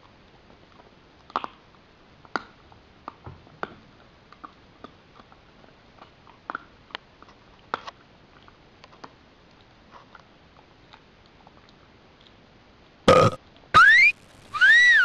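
A husky chewing a bone, with scattered sharp cracks and crunches. Near the end come the loudest sounds: a short loud burst, then two high squeaky sliding calls, the last rising and then falling.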